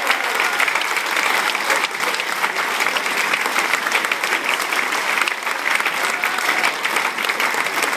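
Audience applauding steadily: dense clapping from a large crowd.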